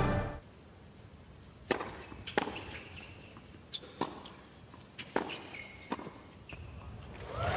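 Tennis rally on a hard court: a string of sharp racquet-on-ball hits and ball bounces over about four seconds. Crowd applause breaks out near the end as the point is won.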